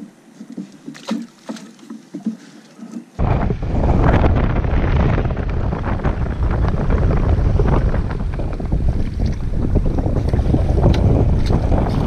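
Strong wind buffeting the microphone: a loud, low rushing noise that starts abruptly about three seconds in and carries on steadily. Before it there are only a few faint knocks and clicks.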